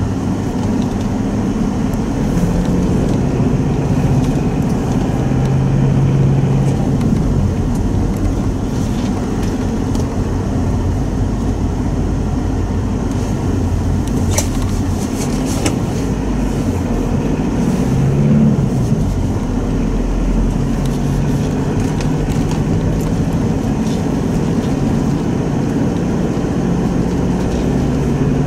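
Cabin sound of a Mitsubishi Pajero Sport's 2.5-litre four-cylinder turbodiesel driving slowly on snow, the engine note rising and falling with the throttle. A few brief clicks come about halfway through.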